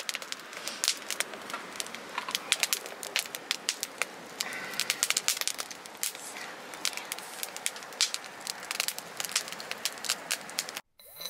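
Split firewood burning in a steel fire stand, crackling with many irregular sharp pops over a steady hiss. It cuts off abruptly near the end.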